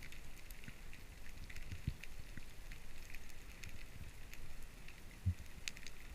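Underwater ambience during a spearfishing dive: a steady scatter of faint crackling clicks over a low rumble. There is a low knock about two seconds in and a louder one about five seconds in.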